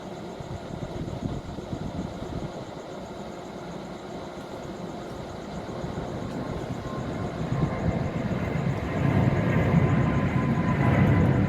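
Steady mechanical rumble that grows louder over the second half, with a faint steady whine joining it about two-thirds of the way through.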